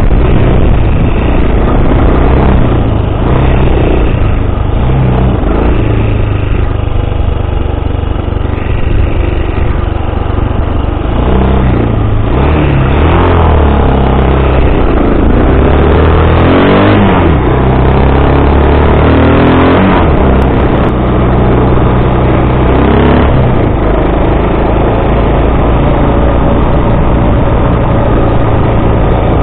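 Bashan 250 quad's 250 cc engine running under way. Its note rises and falls over and over through the middle stretch as the throttle is worked, and is steadier before and after.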